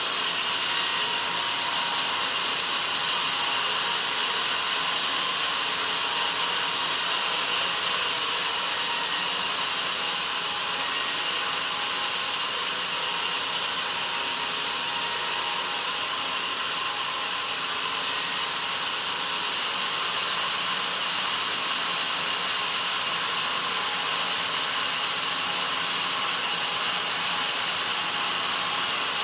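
Sawmill band saw cutting through a log: a steady, hissing rasp that is a little louder for the first eight seconds, then eases slightly.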